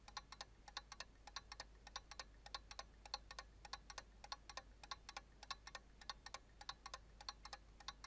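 Tape recorder running: faint, uneven mechanical clicking about four or five times a second over a steady low hum.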